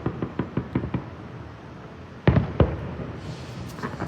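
Aerial fireworks going off: a quick string of small crackling pops in the first second, then two loud bangs about a third of a second apart a little over two seconds in.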